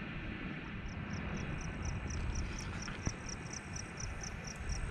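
An insect chirping in a steady high-pitched rhythm, about four to five pulses a second, starting just under a second in. A low rumble runs underneath.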